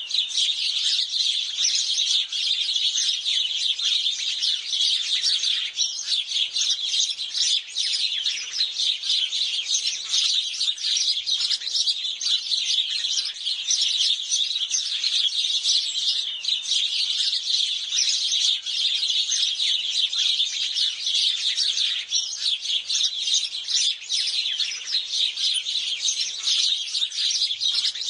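House sparrows chirping without pause, many birds calling over one another in a dense chatter.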